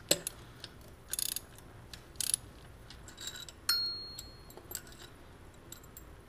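Socket ratchet clicking in short spurts and metal clinking as 15 mm cylinder head bolts are loosened the rest of the way. One clink a little past the middle rings briefly.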